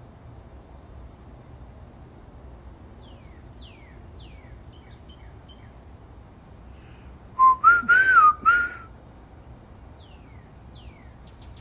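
A person whistling a short wavering phrase of a few notes, about a second and a half long, a little past the middle. Around it, wild birds call faintly with repeated downward-sliding notes and quick high chips.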